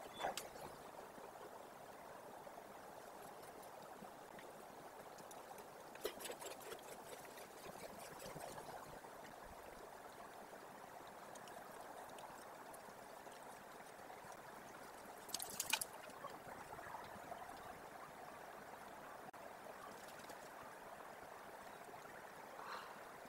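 Faint, steady outdoor background noise with a rushing, running-water quality, broken by a few short sharp sounds about six seconds in and, loudest, about fifteen seconds in.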